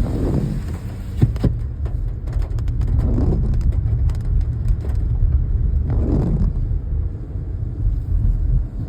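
Steady low rumble of a car's engine and tyres heard from inside the cabin while driving, with a couple of sharp clicks about a second in.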